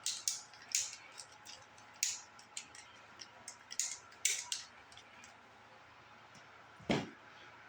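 Short clicks and scrapes of hands working on greased wheel-hub bearing parts, about a dozen in the first five seconds, then one heavier knock about seven seconds in.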